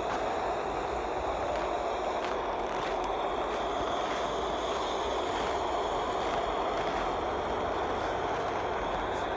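A steady, even background noise with no clear source, with a few faint clicks.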